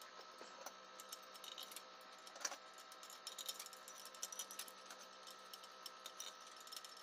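Faint, irregular small metal clicks and taps as valve-gear parts are handled and set in place among the valve springs of an Isuzu diesel cylinder head, over a faint steady high hum.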